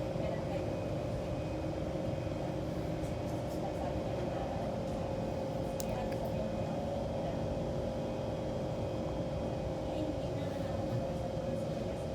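Kawasaki C151 metro train running at a steady speed in an underground tunnel: a constant rumble of wheels on rail with a level whine that does not rise or fall.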